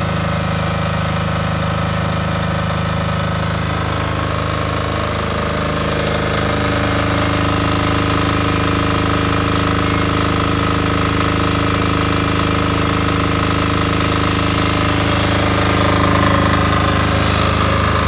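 Varan diesel generator's small single-cylinder air-cooled diesel engine running at a steady speed, its exhaust piped into an old steel fuel tank. Steady throughout, getting a little louder near the end.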